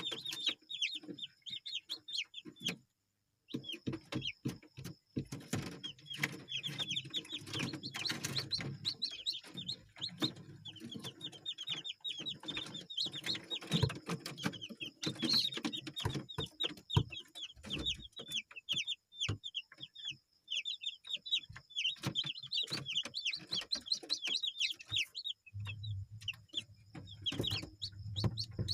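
A flock of kampung chickens (Indonesian native chickens) clucking and chirping, with a dense run of short, high, rapid chirps throughout. There is a brief break about three seconds in, and a low steady hum comes in near the end.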